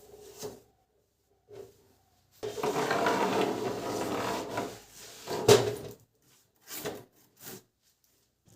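Household handling noises: a few light clicks, then about two seconds of steady scraping or rubbing, then a sharp knock and a few lighter knocks.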